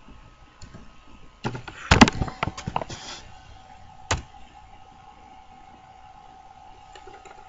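Computer keyboard keys typed in a quick burst of clicks, followed about a second later by a single louder click.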